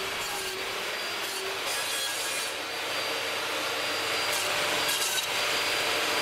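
Table saw ripping a Jarrah hardwood strip for floating tenons: a steady rushing hiss of the blade cutting wood, rising slightly about halfway through.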